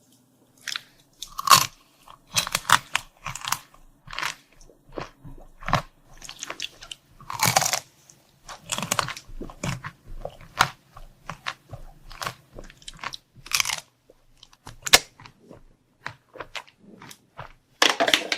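Close-miked biting and crunching of crunchy sweet food, a quick irregular run of crisp crunches with a few louder bites.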